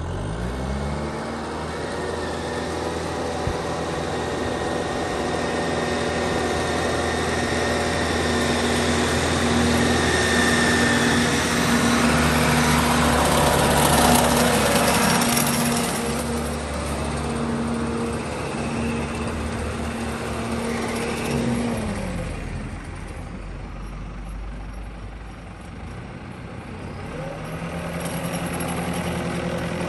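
2001 New Holland TNF90 narrow tractor's diesel engine running as the tractor drives up and past, loudest as it passes close about halfway through. The engine speed drops about two-thirds of the way in and picks up again near the end.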